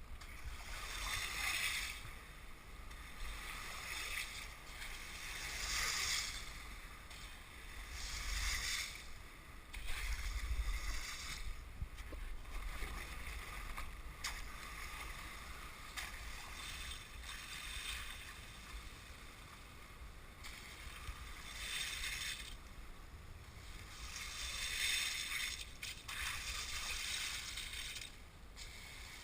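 Kayak hull pushing through a thin sheet of lake ice, the ice shards and crystals tinkling and crackling against the hull. The sound swells and fades in surges every few seconds as the boat moves forward.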